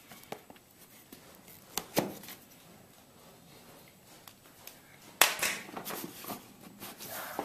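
Thermostat packaging being handled during unboxing: a few sharp clicks and knocks, the loudest about two seconds in and about five seconds in, with some rustling after the second.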